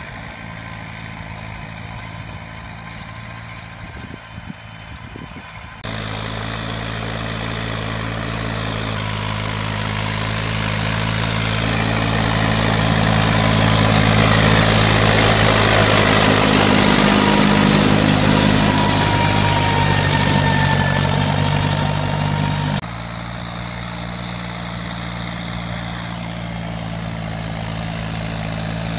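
Deutz-Fahr Agromaxx 60 tractor's diesel engine running steadily under load while pulling a rotary tiller through dry orchard soil. It grows louder as the tractor comes close, loudest a little past the middle. The level jumps up suddenly about six seconds in and drops suddenly about three-quarters of the way through.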